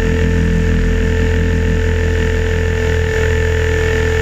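Align T-Rex 550 RC helicopter in flight, heard from its onboard camera: a steady whine of the motor, drivetrain and main rotor, holding an even pitch.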